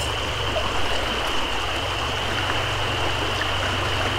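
A river running steadily: an even rush of water flowing over a rocky riffle.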